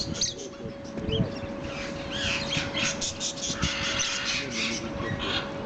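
A flock of budgerigars chattering, with many quick, overlapping chirps.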